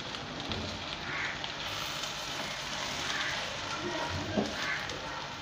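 Onions, chillies and spice powder sizzling as they fry in a non-stick pan, a steady hiss with a spatula stirring through the mix, and one short knock of the spatula against the pan about four seconds in.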